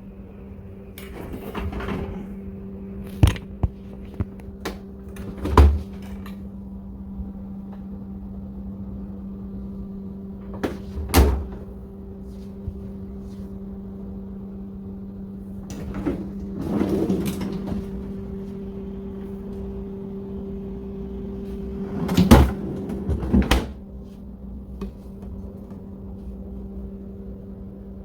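A steady electric hum runs under about eight sharp knocks and a few short spells of clatter, like cupboard doors and household items being handled. The knocks come irregularly, the loudest about 22 seconds in.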